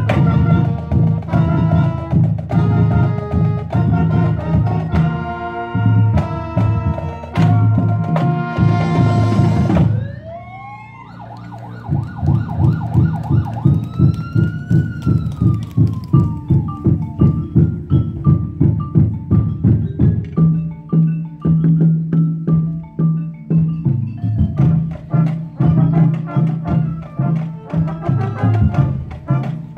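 Marching band playing, with saxophones, trumpets and a drum line. About ten seconds in the band cuts off and a siren-like wail rises and falls for a few seconds, then the drums keep a steady beat under short, clipped horn notes.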